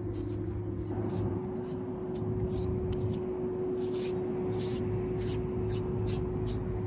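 Groomi deshedding brush blade raking through a horse's coat in quick scratchy strokes, about two a second, over a steady low hum.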